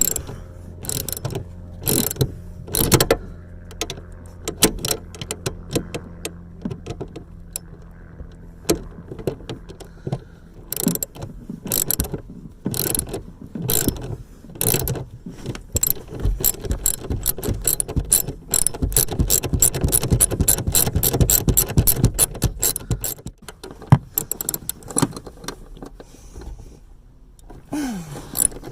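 Hand ratchet wrench clicking as car seat bolts are worked loose, in irregular bursts with a long fast run of ratcheting in the middle.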